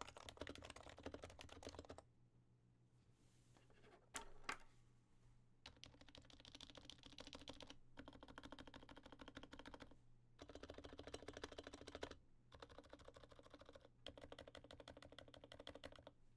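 Fast typing on an HHKB Professional Classic keyboard with lubed Topre 45 g switches fitted with silencing rings: quiet, dense runs of keystrokes broken by short pauses, with two louder single key strikes about four seconds in.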